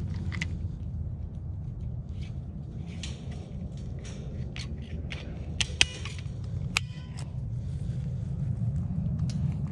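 Cable-tie tensioning tool clicking as it is worked on a zip tie around a chain-link fence post, with a sharp snap a little past halfway and another about a second later as it tightens and cuts the tie. A steady low rumble runs underneath.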